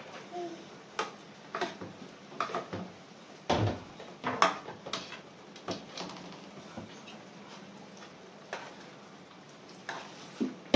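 A metal spoon clinking and scraping against a metal baking tray while chicken pieces in sauce are turned over: a run of irregular clinks, thickest over the first few seconds, then sparser.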